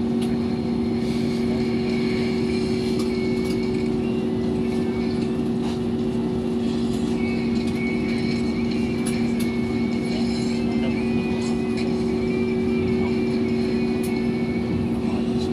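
Steady drone of an airliner cabin before takeoff: a constant low hum made of two steady tones, with faint scattered clicks over it.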